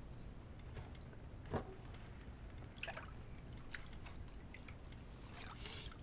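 Small splashes and drips of water, a few separate ones and a longer splash near the end, over a low steady hum.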